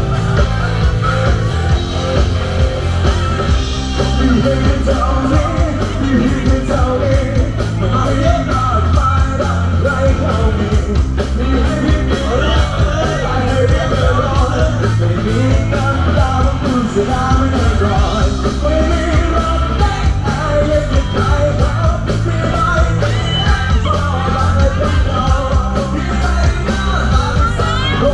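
Loud rock music with a singer over a steady drum beat.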